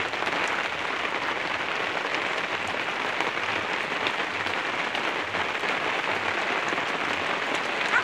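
Steady rain falling on pavement and grass, an even hiss with faint scattered drips.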